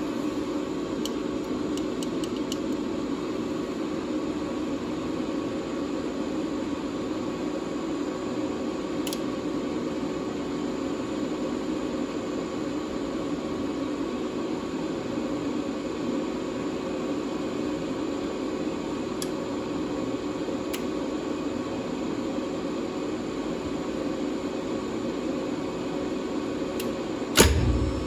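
Steady hum and hiss of a lift machine room while the lift stands idle, with a few faint ticks. Near the end comes a loud clunk as the controller switches the lift to high-speed upward travel.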